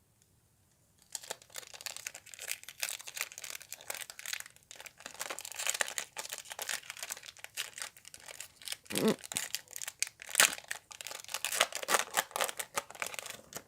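Foil Pokémon TCG booster pack wrapper being crinkled and torn open, a dense crackling that starts about a second in.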